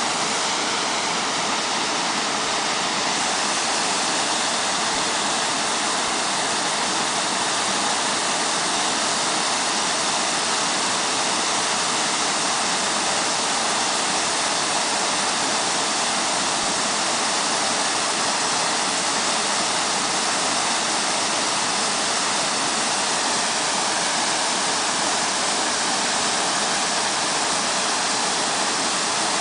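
Waterfall: a steady, unbroken rush of falling water that holds an even level throughout.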